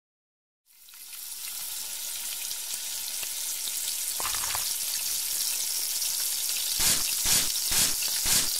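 Beaten egg with chopped chives sizzling in a hot frying pan. The sizzle fades in just under a second in and holds as a steady hiss with light crackling, with a louder pop about four seconds in and several sharper pops near the end.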